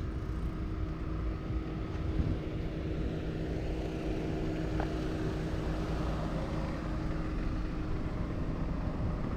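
Steady hum of an engine running, over a low rumble.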